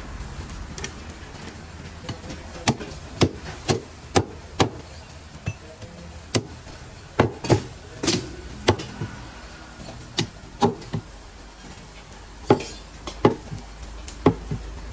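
Heavy meat cleaver chopping mutton on a wooden log chopping block: about twenty sharp chops, irregular and often in quick runs of two or three.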